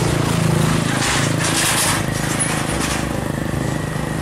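Car-carrier truck's engine running in road traffic, a steady rattly hum, with a burst of hiss between about one and two seconds in.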